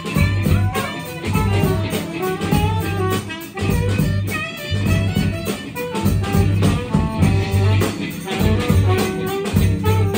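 Live band playing: a saxophone leading over electric guitar, bass, keyboard and drum kit.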